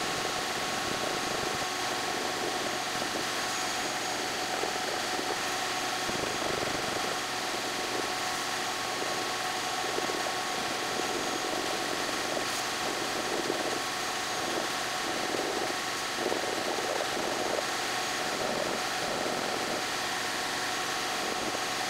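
Vacuum running steadily, drawing up dust, with repeated hand strokes of a sanding stick rasping along the edge of a floor tile as the overhang is sanded flush with the board.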